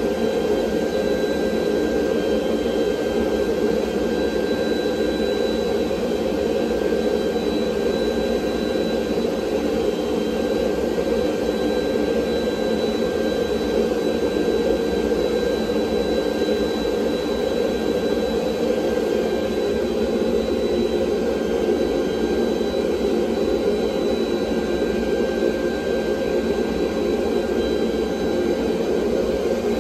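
Forging equipment running with a steady, unbroken roar and a faint high whine, no hammer blows or impacts.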